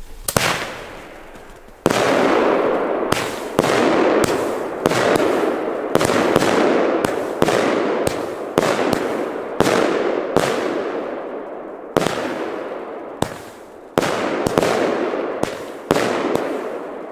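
A firework battery (cake) fires shot after shot, about two a second, each sharp report followed by noise that fades before the next.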